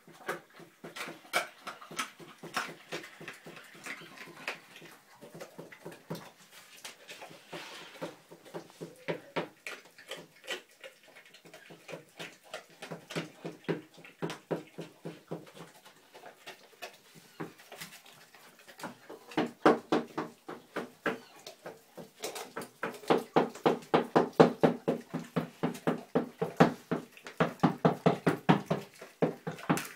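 A dog licking and mouthing a whole raw chicken: a quick run of wet smacks, about three a second, growing much louder in the last third.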